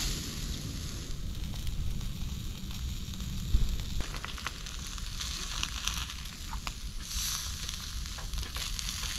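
Salted salmon sizzling and crackling as it grills, with one dull knock about three and a half seconds in.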